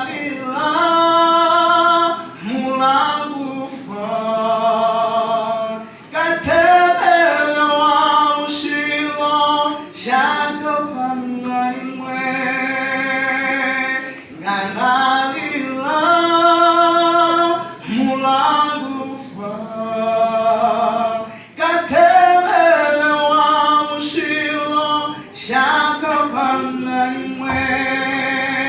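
A voice singing a slow gospel song in long held phrases with vibrato, each phrase a few seconds long with short breaks between them.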